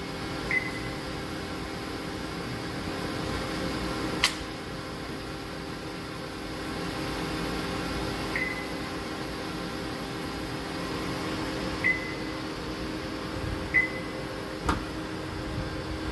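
DMG MORI NLX2000SY CNC turning center running with a steady hum carrying several low steady tones. Four short, high beeps are spread through it, and there are two sharp clicks, about four seconds in and near the end.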